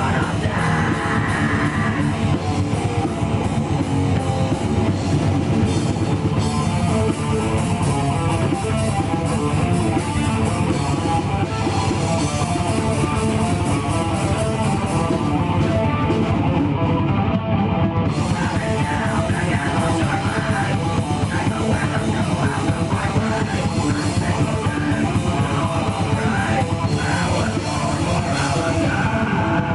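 Live heavy metal band playing loud and without a break: distorted electric guitars, bass and drum kit, with the singer's vocals coming in at times.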